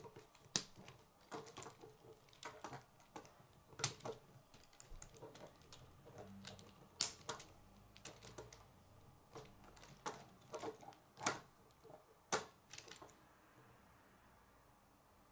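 K'nex plastic rods and connectors clicking and snapping as they are handled and fitted together: irregular sharp clicks, a few much louder than the rest.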